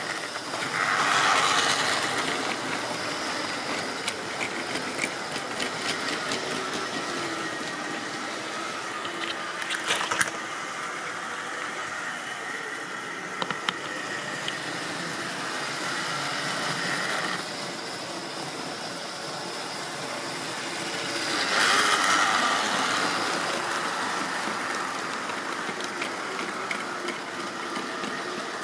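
Model railway trains running on the track: a steady whir and rattle of motors and wheels, swelling twice as a train passes close by, about a second in and again about 22 seconds in. A few sharp clicks near the middle, as of wheels running over rail joints and points.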